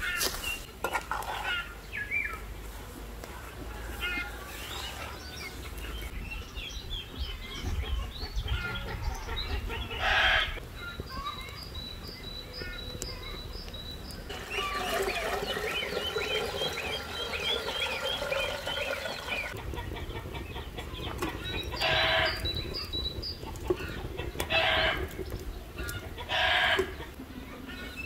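Chickens clucking and calling, with short loud calls about ten seconds in and three more near the end, and a stretch of rapid chirping in the middle.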